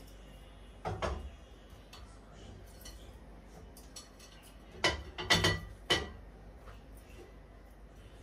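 Cooking pot and dishes clanking against the stove and counter: one knock about a second in, then a quick run of three or four ringing clanks around five to six seconds in.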